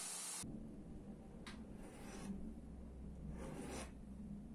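Hand tool scraping across a knife blank in two strokes, one short and a longer one about three seconds in, over a low steady hum. A steady hiss cuts off about half a second in.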